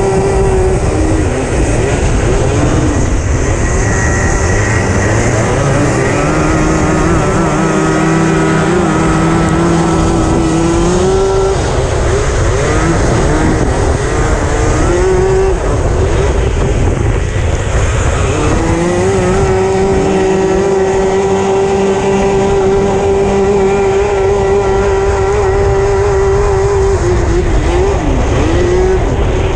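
Racing kart engine heard from onboard at speed, held at high revs for long stretches, with the pitch dropping and climbing back several times, about a second in, near the middle, and near the end.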